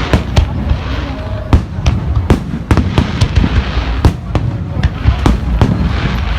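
Aerial fireworks bursting in quick succession: sharp bangs about two a second over a continuous low rumble of further explosions.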